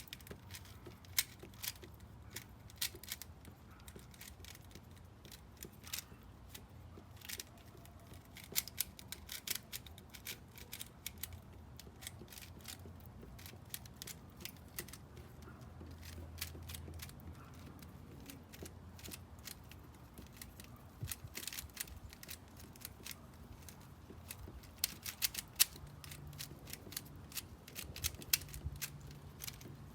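Plastic 3x3 bubble Rubik's Cube layers being turned in quick succession: a string of irregular sharp clicks and clacks, coming in bursts of rapid turns.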